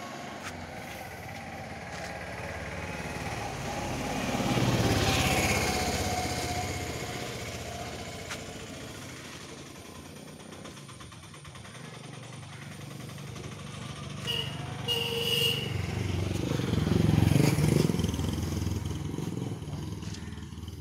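Motor vehicles passing on a nearby road: engine noise swells up and fades away about five seconds in, and again around 17 seconds, the first one dropping in pitch as it goes by.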